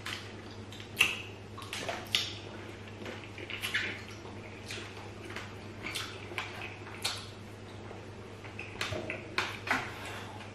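Close-up mouth sounds of eating with the hands: lips smacking and fingers being licked, heard as short, sharp wet clicks coming irregularly about once or twice a second. A steady low hum runs underneath.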